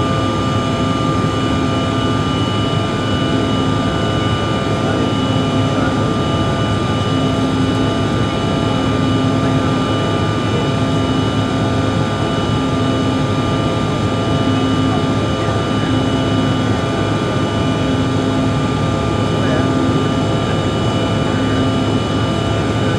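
Cabin noise of a Bombardier CRJ700 airliner climbing after takeoff: the steady rush of air and whine of its two rear-mounted GE CF34 turbofans, with a low drone that swells and fades about every second and a half.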